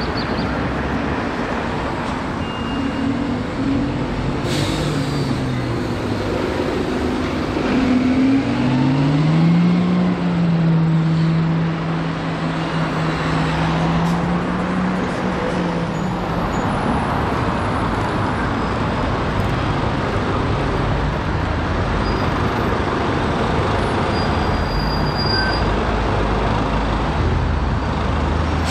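Alexander Dennis Dart SLF single-deck diesel bus pulling away amid street traffic: a short air hiss about five seconds in, then the engine rising in pitch as it accelerates and holding steady before fading into the traffic.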